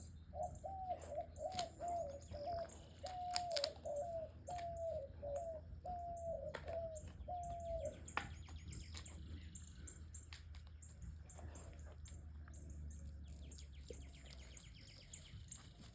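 An animal calling: about a dozen short, mid-pitched calls, each dropping in pitch at its end, in the first half, with a few sharp clicks among them.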